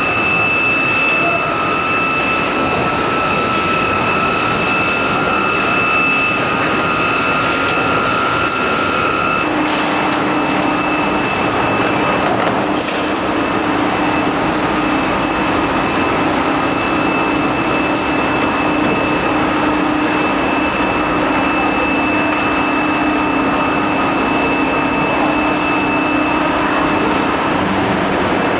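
Machinery of a biscuit production line running: the tray conveyor and oven line make a steady, loud mechanical noise with a high whine throughout. About ten seconds in, a mid-pitched tone drops out and a lower hum comes in.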